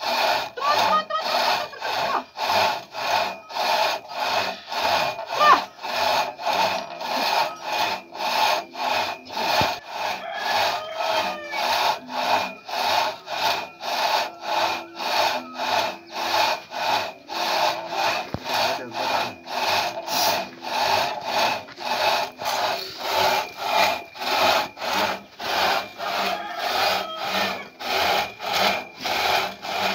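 Long two-person rip saw cutting lengthwise down a propped log to make planks. It rasps in a steady back-and-forth rhythm of about two strokes a second.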